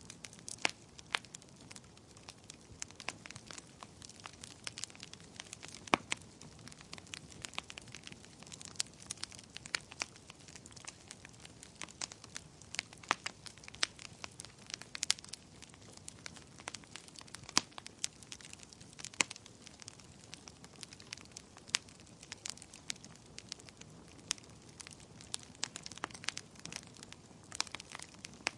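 Wood fire burning, with irregular sharp crackles and pops over a soft steady hiss of the flames.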